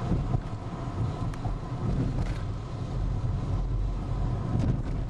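A car driving at speed, heard from inside the cabin: a steady low rumble of engine and tyres on the road.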